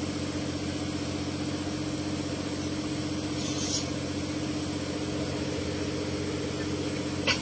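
Off-road buggy's engine idling steadily, with a short sharp click about three and a half seconds in and a louder one just before the end.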